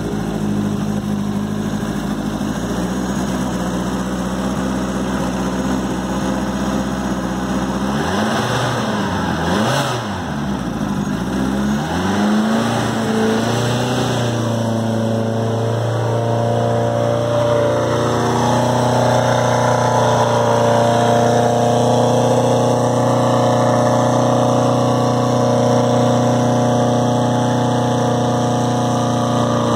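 Ford RS1700T rally car's turbocharged four-cylinder engine idling, blipped several times between about eight and twelve seconds in with quick rising and falling revs, then held at a steady raised idle.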